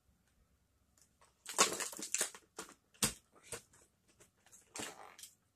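Moulded plastic packaging tray crackling and snapping as a toy airliner is pried out of its cavity: a run of crinkles about a second and a half in, a sharp snap about three seconds in, then smaller clicks and a last crackle near the end.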